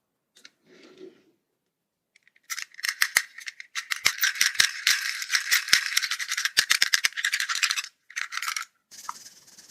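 Rattling of many small hard pieces, a dense clatter of clicks lasting about five seconds from a couple of seconds in, then a second short burst near the end.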